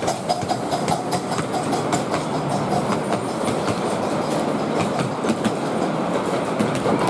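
Miniature steam railway train running along the track, heard from aboard: a steady rattle and rumble of wheels clattering over the rails.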